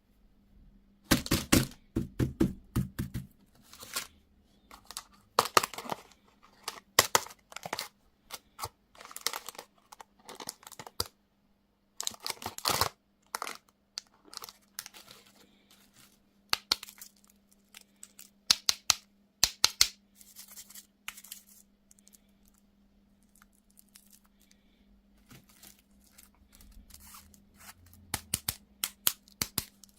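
Plastic candy or toy wrapper being torn open and crinkled by hand: irregular bursts of sharp crackling with short pauses between, loudest about one to three seconds in.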